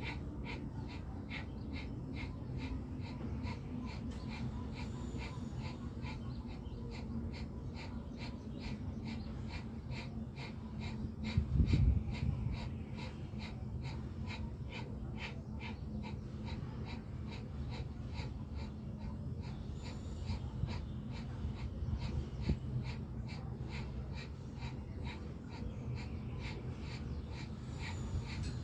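Bhastrika pranayama (bellows breath): a person breathing forcefully and rapidly through the nose, in an even run of strong inhales and exhales. A louder low bump comes about twelve seconds in.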